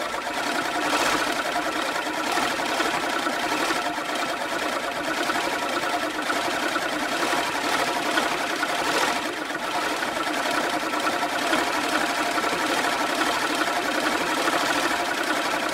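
Manual push lawnmower running steadily, its spinning blades giving a continuous fast mechanical whirring clatter. There are slight surges about a second in and again around nine seconds.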